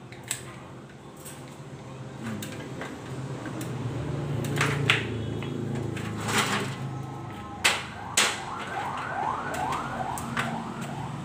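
A handful of sharp clicks and clacks as the man works with pruning shears on grapevine canes and handles an aluminium stepladder. For the last few seconds an electronic alarm whoops repeatedly, each whoop rising in pitch, about three or four a second.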